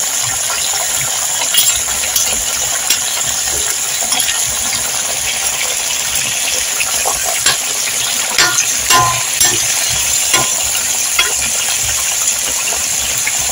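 Fish and vegetables frying in hot oil in a pan: a steady sizzle with scattered crackles and pops.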